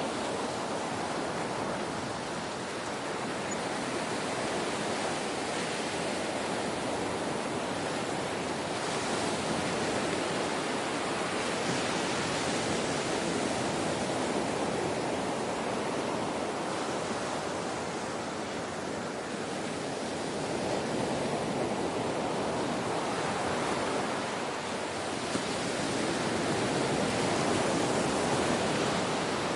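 Gentle ocean waves: a steady rush of surf that slowly swells and eases over several seconds.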